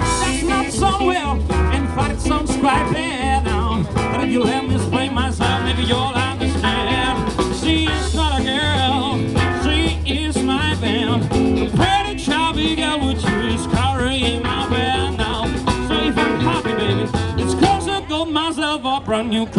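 Live blues band playing: electric and acoustic guitars over an upright double bass and a drum kit, with a steady low bass pulse and wavering guitar notes on top.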